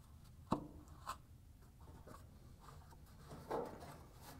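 Faint handling sounds of a plastic GE dryer blower wheel being pushed onto the motor shaft: a sharp click about half a second in, a lighter click a moment later, then soft scraping.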